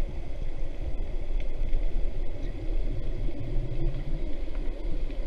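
Muffled, steady low rumble of moving river water, heard by a camera underwater, with a few faint ticks.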